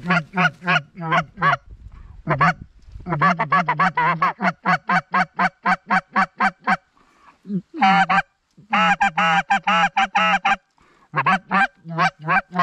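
Canada goose calling: rapid runs of loud honks and clucks, about four to five notes a second, broken by brief pauses about two seconds in and again around seven seconds in.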